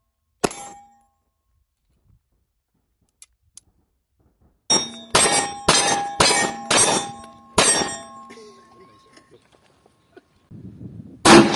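Handgun shots at steel targets. One shot comes just after the start, then a quick string of about seven shots within three seconds midway, each answered by the clang of struck steel plates, which keep ringing for about a second after the last shot. One more loud bang comes near the end.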